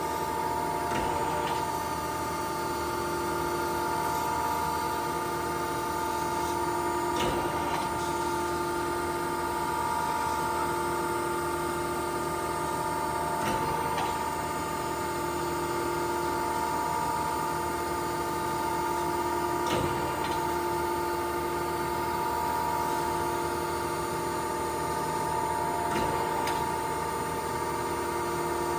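1992 Okamoto ACC-2040DX2 hydraulic surface grinder running through its spark-out passes, the final passes of the wheel over the part. A steady whine runs throughout, with a short knock about every six seconds.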